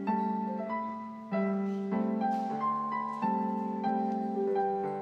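Solo piano music: a slow piece with chords struck every second or so under a simple melody, each note ringing and fading.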